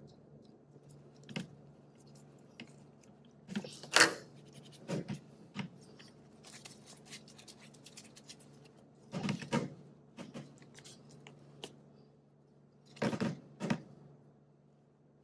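Workbench handling noise as a CV axle and its boot clamp are worked by hand: scattered metal clicks, knocks and light rattles of parts and tools on a stainless steel bench, the sharpest knock about four seconds in, over a low steady hum.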